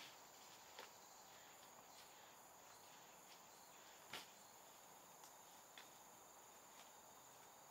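Faint, steady, high-pitched chirring of insects, with a few soft clicks; the clearest comes about four seconds in.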